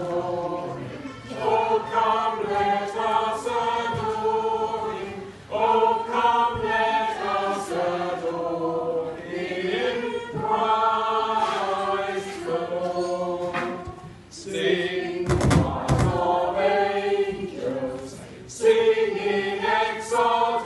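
Small amateur choir of a few voices singing a Christmas carol unaccompanied, phrase by phrase with short breaks for breath. A brief thump cuts across the singing about fifteen seconds in.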